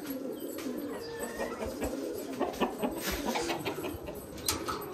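Domestic pigeons cooing in low, repeated warbles, with a few sharp clicks in the middle and near the end.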